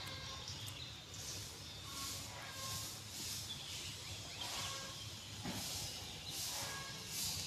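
Outdoor ambience: a high hissing chirp pulsing about once a second over a low steady hum, with a few faint short chirps.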